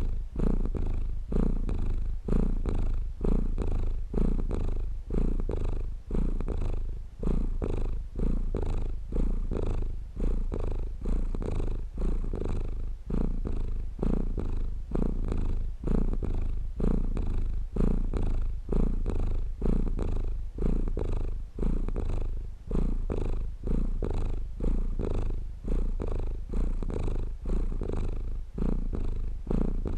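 Domestic cat purring close up, a steady rhythmic purr of in-and-out breaths, about one to two pulses a second.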